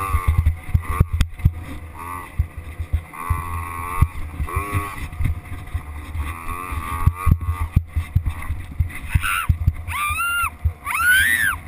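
Small dirt bike engine revving up and down as it rides a rough trail, with frequent knocks and thumps from the bumps.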